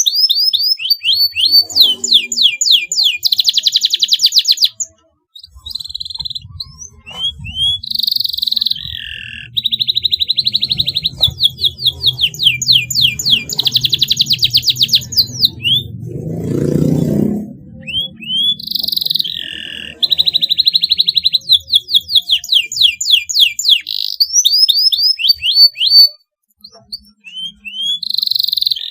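Domestic canary singing a long, loud song of rapid trills and fast runs of repeated high notes, with brief pauses about five seconds in and near the end. A low rumble sits under the song in the middle, loudest around the seventeenth second.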